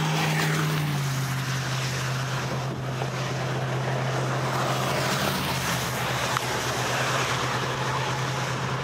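Steady rushing wind and rain noise under a low, steady hum from a running vehicle engine; the hum drops slightly in pitch about a second in.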